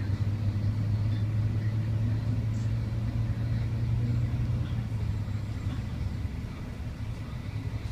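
Bus engine and running gear heard from inside the upper deck of a moving double-decker bus: a steady low drone that eases off a little about five seconds in.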